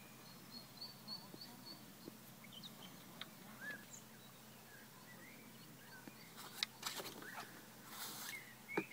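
Quiet outdoor ambience with scattered short bird chirps and calls, including a quick run of repeated high notes in the first second or two. A few sharp clicks and a brief rustle come in the last few seconds.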